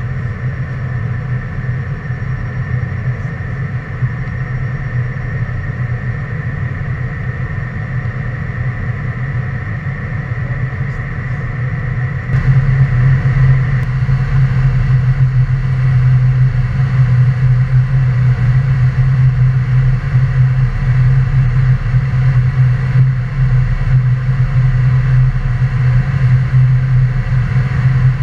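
Cessna Citation jet's turbofan engines running steadily with a high whine over a deep hum, growing suddenly louder about twelve seconds in.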